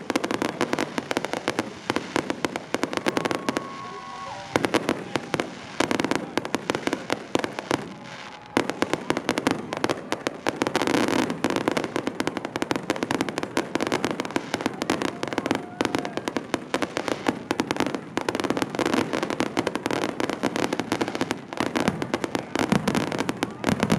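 Fireworks going off in a dense, continuous crackle of rapid pops and bangs, easing off briefly about four seconds in and again about eight seconds in.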